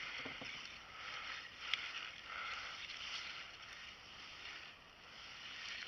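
Faint handling and water noise from a kayak while a hooked trout is played on rod and reel: a low, steady hiss, with one sharp click a little under two seconds in.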